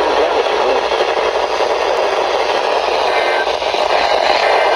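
Radio static: a steady hiss of noisy reception through a radio receiver. The alert the uploader was recording suffered interference from another weather-radio station.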